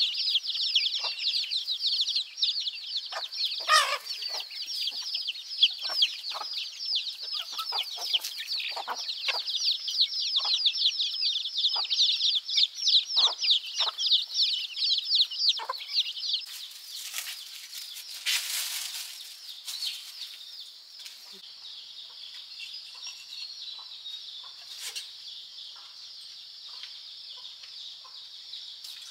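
Chicks peeping, a rapid stream of high overlapping chirps, which thins about halfway through into a steadier, fainter high peeping, with a brief rustling noise a little after that.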